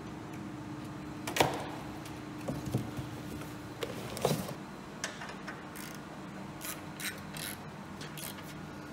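Knocks and rattles of a new radiator and intercooler being handled in their cardboard box, the loudest knock about a second and a half in, then a run of light metallic clicks as the intercooler is bolted to the radiator with a hand tool. A steady low hum runs underneath.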